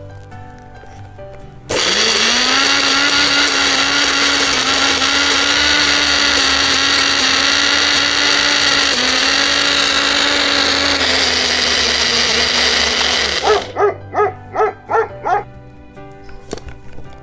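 Electric mixer grinder starts about two seconds in and runs steadily, grinding biscuits into crumbs, then near the end is pulsed in about six short bursts before stopping.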